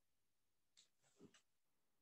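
Near silence: room tone, with a few faint, brief sounds a little under a second in and again just over a second in.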